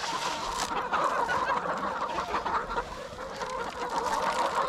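A large flock of laying hens clucking and calling all at once, a steady dense chatter, as wheat is scattered among them.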